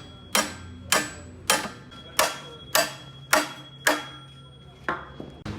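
Hammer striking metal eight times at a steady pace, about one and a half blows a second, each blow leaving a short metallic ring; the last blow is lighter.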